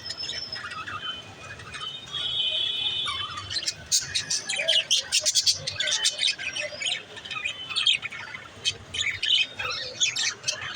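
Pet budgerigars chirping and warbling: many quick, high chirps and squawks, busier from about three seconds in.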